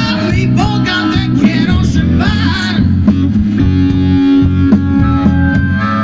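Live blues band playing loudly, with singing over electric guitar and drums. The singing stops about halfway, and long held notes carry on over the band.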